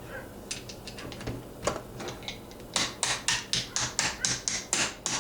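Small hammer tapping the trigger-group retaining pin back into a Mossberg 500-type shotgun receiver: a few light clicks, then from near the three-second mark a quick, even run of sharp taps, about four a second.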